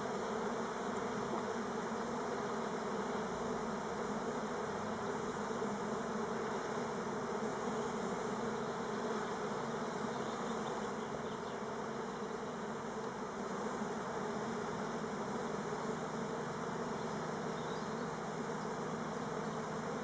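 Many Buckfast honey bees flying around their hive, making a dense, steady buzzing hum. The beekeeper hopes this is a mass orientation flight of young bees rather than a swarm.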